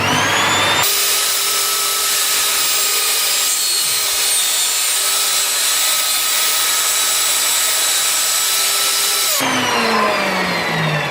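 Evolution Rage table saw switched on and whining up to speed, then running steadily while ripping a 25 mm strip from a scrap board. About nine seconds in it is switched off and its motor winds down with a falling whine.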